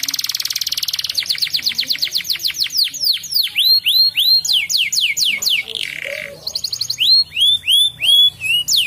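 Domestic canary singing a long, varied song: a very fast trill, then a run of quick descending whistled notes, then hooked slurred notes and short rolls.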